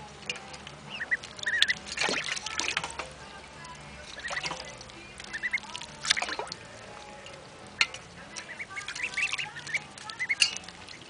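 Ducklings giving short, high peeps while dabbling at a shallow water dish. Their bills slap and splash in the water now and then.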